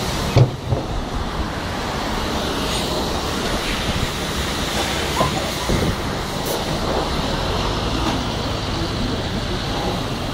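Steady street traffic noise at a bus stop, with the low rumble of an articulated city bus standing at the stop with its engine running. A single sharp knock about half a second in.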